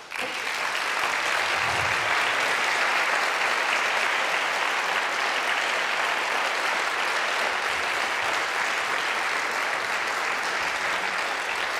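Audience applauding steadily, breaking out all at once.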